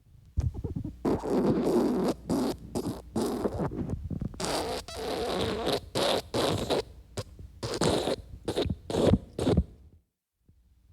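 Cartoon wet fart sound effect: a long string of wet, sputtering farts, a few drawn out for about a second, most short and rapid. It stops near the end.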